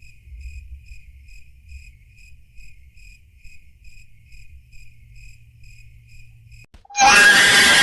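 Crickets chirping in the evenly repeated 'awkward silence' meme sound effect, about two and a half chirps a second over a low hum. Near the end a much louder sound effect cuts in abruptly.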